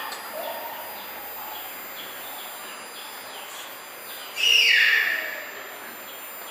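A bird calling: faint short chirps over a steady hiss, then one loud call about four and a half seconds in that falls in pitch.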